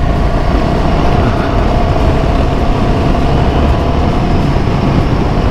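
Royal Enfield Himalayan 450's single-cylinder engine running steadily while the motorcycle rides over a rough dirt road, mixed with road rumble and wind noise on a helmet-mounted microphone.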